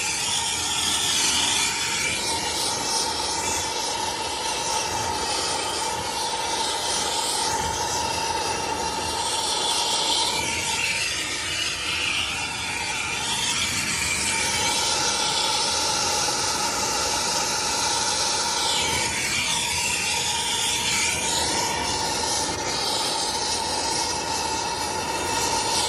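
Hand soldering torch burning with a steady hiss and an even tone in it while heating a 2-inch copper pipe joint for soldering; the hiss changes a little as the flame is moved.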